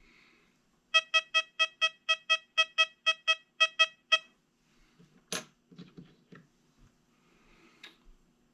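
XP Deus 2 metal detector giving its silver-coin tone: a rapid run of about sixteen short beeps at one even pitch, around five a second for about three seconds, as the coil passes a silver 1918 Standing Liberty quarter. A single sharp click follows a second later.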